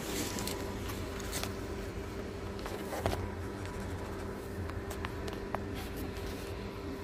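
A steady low hum with a faint held tone, and a few light clicks, the clearest about three seconds in.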